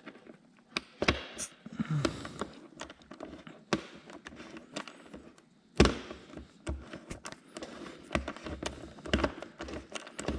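Scattered clicks, taps and knocks of hand tools and metal hardware being handled while a bolt is threaded in, with one sharper knock about six seconds in.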